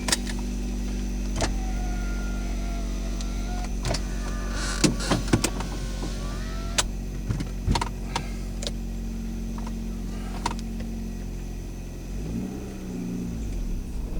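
2001 Hyundai Elantra's 2.0-litre Beta II four-cylinder engine running steadily, heard from inside the car, with scattered clicks and knocks. Near the end the engine pitch rises and falls.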